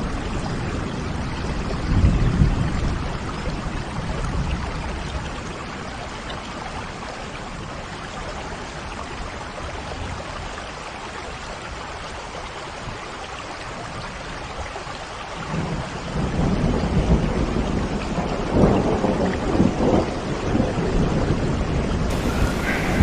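Steady heavy rain with low rumbles of thunder, one about two seconds in and a longer, louder stretch from about two-thirds of the way through; the rain is quieter in the middle.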